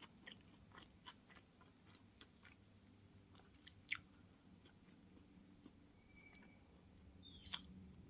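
A person chewing and biting food close to the microphone: a run of small faint clicks, with two sharper clicks about four seconds in and again near the end.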